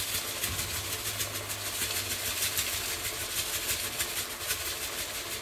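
Pot of green beans with tomatoes simmering on the stove, a steady crackling hiss with a low hum underneath.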